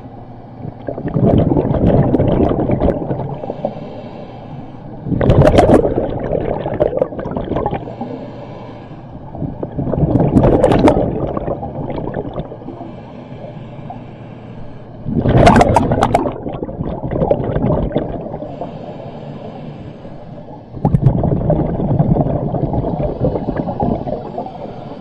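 Scuba diver's breathing heard underwater: a hissing breath through the regulator, then a gurgling burst of exhaled bubbles, repeating about every five seconds.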